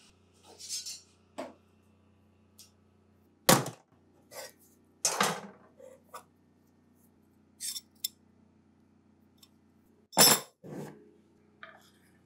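Wooden workpiece and metal parts handled on a workbench: a series of about a dozen separate knocks and clicks of wood and metal, three of them louder.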